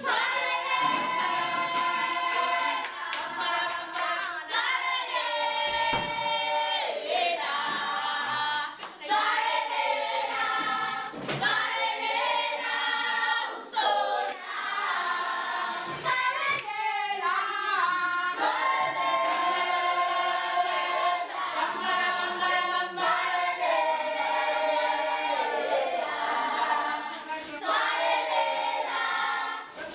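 A group of school students singing together unaccompanied, many voices at once, with a few sharp hits scattered through the song.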